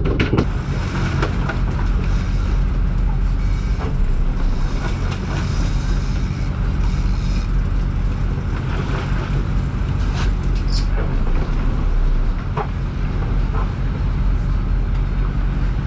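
Boat engines running steadily, a low drone, with a few knocks and clicks from gear being handled in the cockpit.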